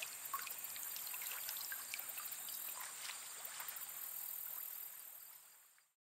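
Stream water running, a steady rushing with small splashy ticks, fading out about a second before the end.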